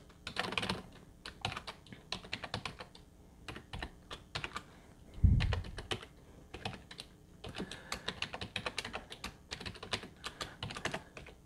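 Typing on a computer keyboard: quick, irregular runs of key clicks with short pauses between words. A single low thump about five seconds in.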